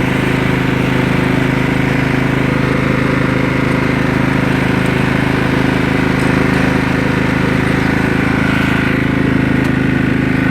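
Riding lawn mower's engine running steadily at full throttle while the mower drives along in gear.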